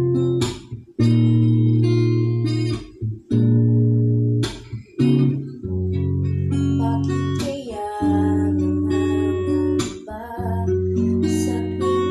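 Guitar accompaniment playing sustained strummed chords that change every second or two, with a girl's voice singing the song along with it from around the middle.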